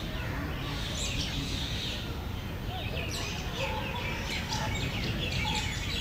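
Several small birds chirping and trilling in a busy, overlapping chorus, over a steady low rumble.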